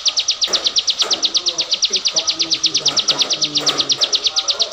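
Caged ciblek songbird singing a fast, steady, high trill of sharp repeated notes, about eleven a second.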